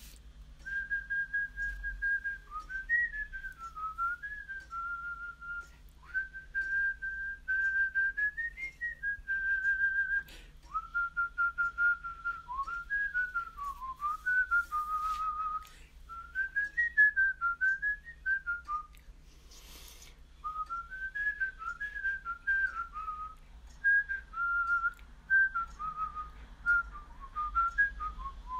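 A person whistling a slow melody in phrases, held notes alternating with quick wavering runs and short pauses between phrases. A faint steady low hum lies underneath, and there is a brief hiss about twenty seconds in.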